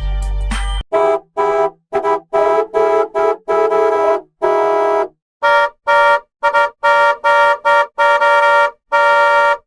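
A vehicle horn, edited as a bus horn, sounds in a rhythmic run of about twenty short and longer honks that shift slightly in pitch, like a tune played on the horn. This follows a brief snatch of bass-heavy music at the start.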